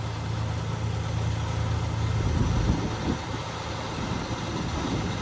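Heavy diesel engine of the site machinery running steadily, a low even hum, with a slightly louder rumble about two and a half seconds in.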